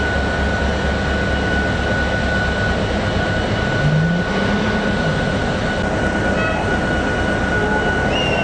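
Locomotive-hauled train running on the line: a steady rumble of engine and wheels with a steady high whine over it.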